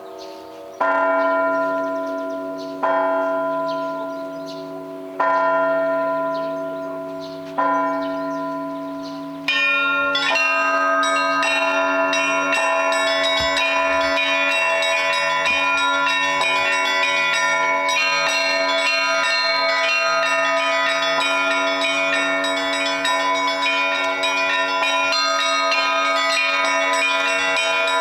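Russian Orthodox church bells. A large bell is struck slowly four times, each stroke left to ring out and fade. From about ten seconds in, a full peal of many bells takes over, with the smaller bells rung rapidly over the larger ones.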